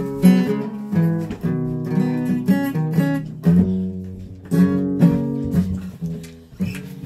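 Guitar being played: chords and single notes picked or strummed about twice a second, each left to ring.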